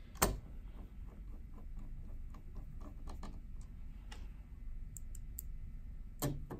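Small screwdriver driving the bracket screws into a 2.5-inch laptop hard drive: a run of light, regular ticks about four a second, with a sharper click about a quarter second in and another near the end.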